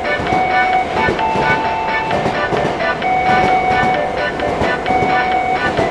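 A train passing a level crossing, with a steady rumble and rapid clatter, while the crossing's warning tones ring over it.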